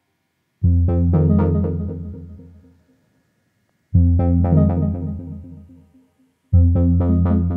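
Background keyboard music. Three phrases with a synthesizer or electric-piano sound, each starting sharply and fading out, with short silent gaps between them.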